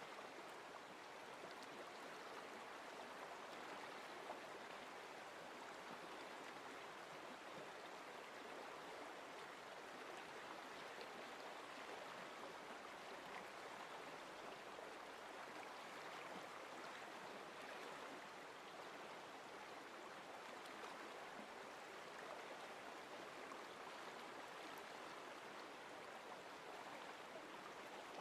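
Faint, steady rushing of a stream: a nature-sound recording of running water.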